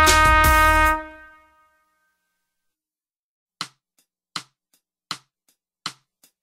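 A play-along accompaniment track ends on a held chord that dies away within the first second or so. After a gap, four evenly spaced count-in clicks about three-quarters of a second apart, with fainter ticks between them, count in the next track.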